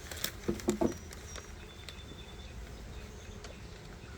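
A quick cluster of knocks and scrapes in the first second, from handling beehive comb and woodwork, then a low steady background with a couple of faint high tones.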